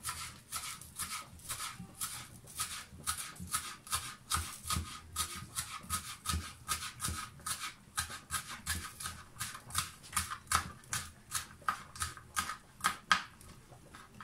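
Chef's knife chopping green onions on a plastic cutting board: a steady run of sharp knocks, about three a second, that stops near the end.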